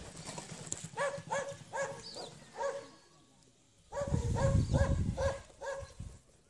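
An animal calling in quick, short repeated cries, about two or three a second, in two runs with a brief pause between them, and a low rumble under the second run.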